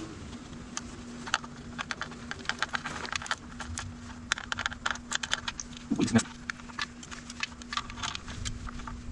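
Bundled e-bike wires and bullet connectors clicking and rustling as they are handled and drawn out of the frame, with a louder knock about six seconds in. A steady low hum runs underneath.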